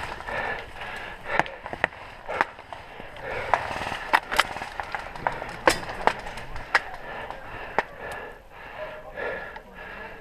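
Airsoft guns firing single shots: scattered sharp cracks at irregular intervals, over faint distant voices.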